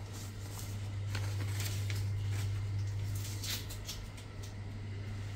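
Printed paper sheets rustling and crinkling as they are handled, in short irregular bursts, over a steady low hum.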